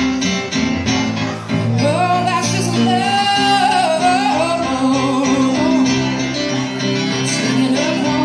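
Live pop-rock song: electric guitar and keyboard accompany a woman singing, who holds a long wavering note from about two seconds in.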